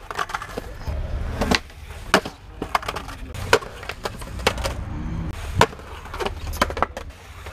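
Skateboard wheels rolling on concrete with a low rumble, broken by about eight sharp wooden clacks of the board: pops, slams and the deck clattering on the ground after a bail.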